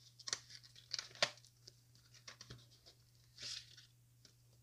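Small cardboard box being opened by hand: a few sharp tearing and clicking rustles in the first second and a half, then a brief swish of packaging about three and a half seconds in.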